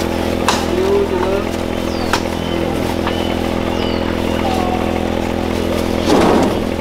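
A small engine running steadily at an even pitch, with short chirps and clicks over it and a brief louder rush of noise near the end.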